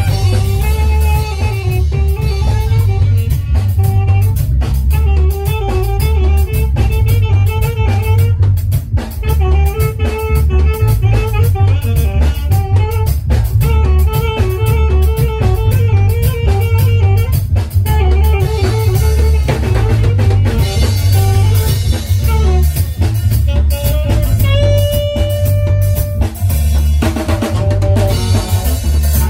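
Loud upbeat dance music with a steady drum-kit beat and bass, a melody moving above it, and a long held note about twenty-five seconds in.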